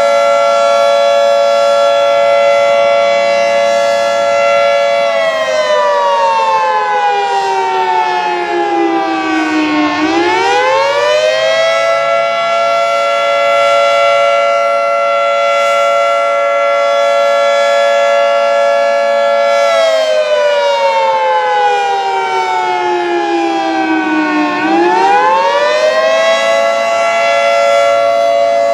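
Fire station siren sounding a long steady tone. Twice the pitch slowly falls over about five seconds and then climbs quickly back up. This is the general fire siren signal, set off in place of the tornado warning signal during a siren test.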